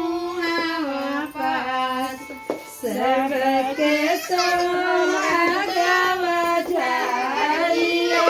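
Music: a song with a high female voice singing a melody that bends and glides.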